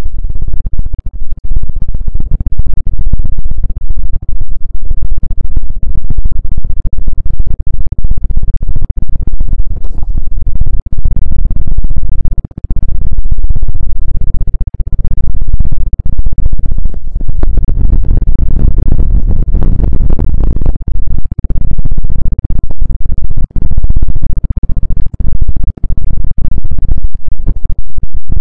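Rapid, continuous scratching and rubbing on an ASMR microphone, loud and bass-heavy, done at fast speed as an ASMR trigger.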